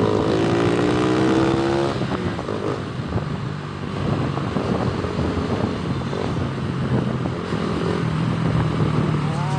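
Motorcycle engine accelerating, its pitch rising for the first two seconds or so, then running steadily at cruising speed.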